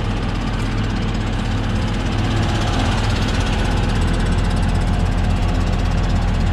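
Claas Tucano 580 combine harvester running while parked: a steady engine drone with machinery hum, growing a little louder about two seconds in as the sound comes from inside the machine near its rotor.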